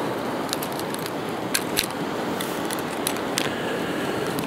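Steady rushing outdoor background noise with scattered light clicks and rattles of fishing tackle being handled.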